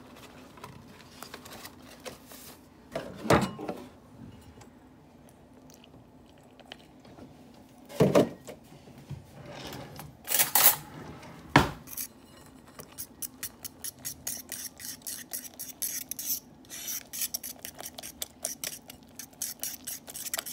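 Kitchen utensils and dishes being handled: a few separate clatters and knocks. From about halfway through comes a fast, steady clicking of a utensil against a dish, about five clicks a second.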